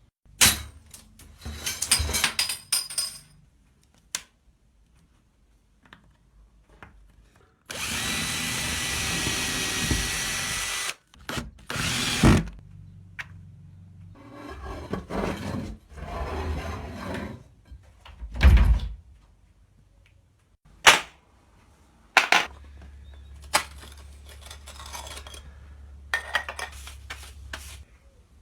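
Hand-tool and power-tool work: a motorised tool runs steadily for about three seconds, among scattered knocks, bangs and rubbing.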